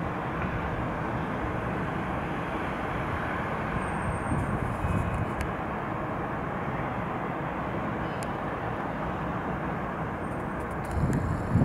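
Steady distant roar of an airliner's jet engines on approach to land, blended with the hum of city traffic below. A few low bumps near the end.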